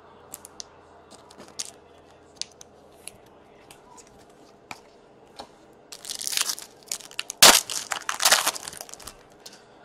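A trading-card pack wrapper crinkles and tears for about three seconds, most sharply about seven and a half seconds in. Before that come scattered light clicks of cards being handled.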